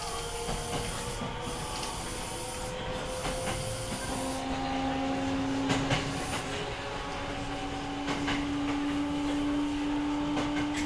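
Osaka Municipal Subway 66 series train's Mitsubishi MAP-184-15V24 GTO VVVF traction inverter (a Hitachi design) whining as the train accelerates. The whine slowly climbs, then about four seconds in steps down to a lower note and starts climbing again, a change of the inverter's switching mode, over steady rail and running noise with a few clicks.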